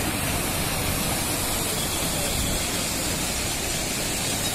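Floodwater of a swollen river rushing and churning, a steady even noise.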